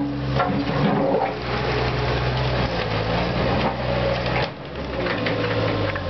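CAT 289C compact track loader driving on its rubber tracks, its diesel engine running steadily with a constant low hum under a hiss of noise. The sound dips briefly about four and a half seconds in, then picks up again.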